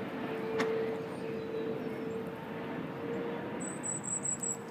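Steady, distant engine drone with a constant low hum under a wash of background noise.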